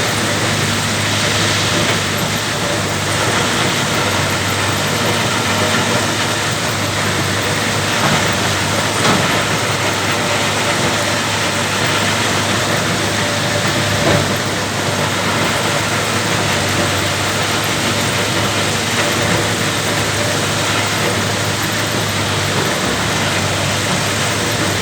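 Diesel engine of a Cat 320 GC excavator running steadily as it works, with a couple of brief knocks partway through.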